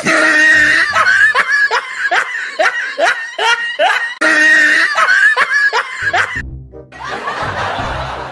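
Rapid high-pitched cackling laughter, about three strokes a second, over music. It stops about six seconds in, and noisier music with a low beat takes over.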